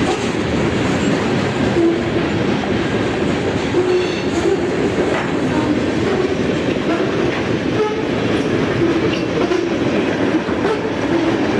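CSX freight train's covered hoppers, tank car and boxcars rolling steadily past over a grade crossing, the wheels running over the rails. The crossing's old warning bell is ringing.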